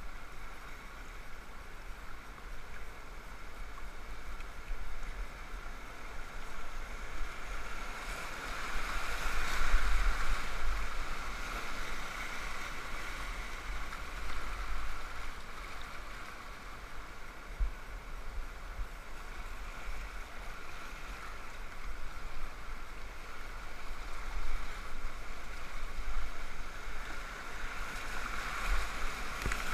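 Whitewater river rapids rushing and splashing around a kayak being paddled downstream. The water swells louder about ten seconds in, and again over the last few seconds as the boat runs into bigger white-capped waves.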